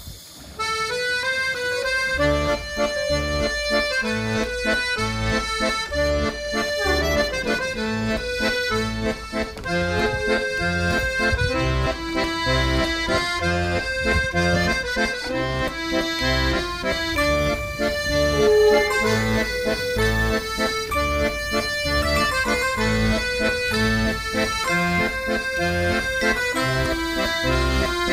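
Accordion music with held melody notes over a steady, pulsing bass beat, starting abruptly about half a second in.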